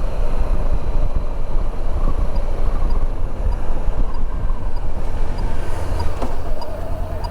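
Riding a 2014 Honda CB500X, a 471 cc parallel twin: steady wind rush and road noise on the helmet microphone, with the engine running underneath.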